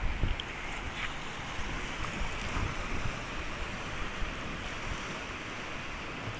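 Sea waves washing onto a beach in a steady hiss of surf, with wind buffeting the microphone in low rumbles at the start.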